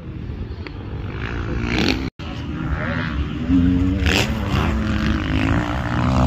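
Motocross bike engine running, its pitch rising and falling, louder from about three and a half seconds in, with a brief dropout about two seconds in.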